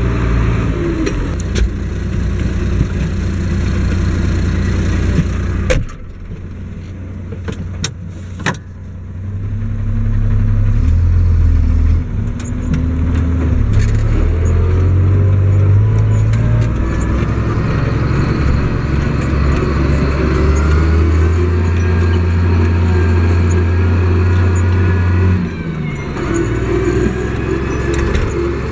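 Case IH 1056 XL tractor's six-cylinder diesel engine running steadily under ploughing work, heard from the driver's seat; the engine note and loudness change abruptly several times.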